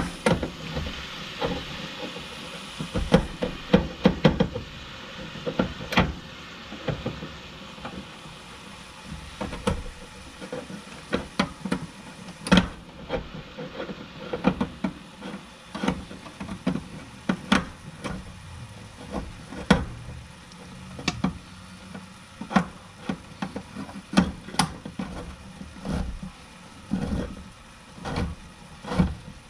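Hand-cranked can opener working around the lid of a metal can: a long run of short clicks and knocks at an uneven pace, about one or two a second, as the crank is turned.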